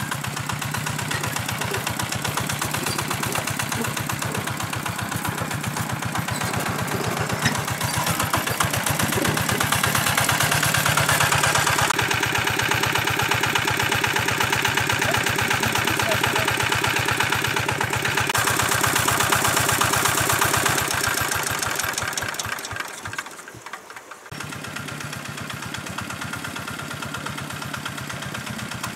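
Engine-driven water pump running steadily, pumping water. It grows louder about ten seconds in, drops away sharply for about a second near the end, then runs on more quietly.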